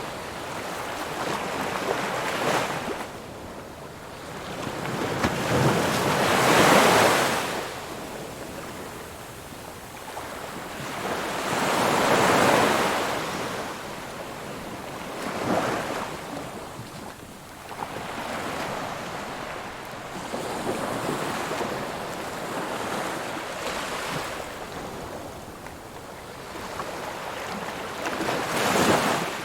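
Ocean waves breaking and washing on a shore, the surf swelling and falling every few seconds, the loudest breakers about six and twelve seconds in and another near the end.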